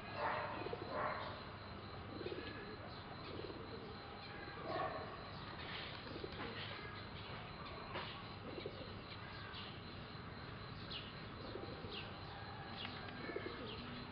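Birds calling: low calls repeating every second or so, with thin, higher chirps scattered through.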